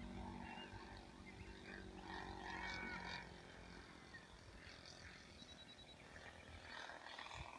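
Saito 1.50 four-stroke glow engine of a radio-controlled Taylorcraft model plane droning faintly in flight, a steady hum that fades away about halfway through as the plane flies off.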